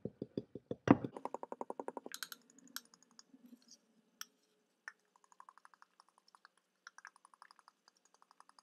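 Fork beating eggs in a bowl, its tines clicking against the bowl in quick, even strokes of about eight a second. The clicks are loudest for the first two seconds, then become softer and more scattered.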